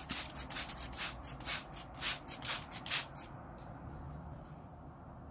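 Hand-held trigger spray bottle squirting water in quick hissy bursts, about three a second, that stop a little past three seconds in.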